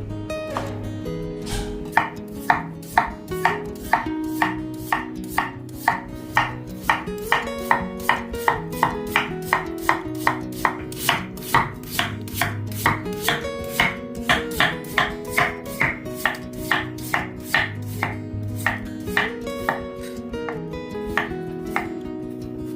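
Knife chopping food on a cutting board at a steady pace of about two to three cuts a second, over background music.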